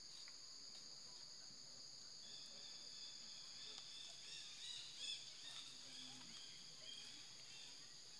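Steady high-pitched drone of an insect chorus, faint, with short chirping calls joining in from about two seconds in.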